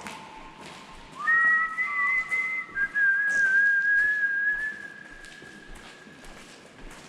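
A person whistling a few long held notes in an abandoned road tunnel. About a second in the pitch slides up, two notes sound together for a while, then one note carries on and fades away near the end.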